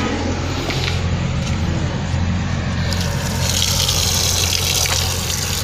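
Water running from an outdoor tap and splashing over hands and the ground below, growing louder and hissier about three and a half seconds in. A steady low engine hum runs underneath.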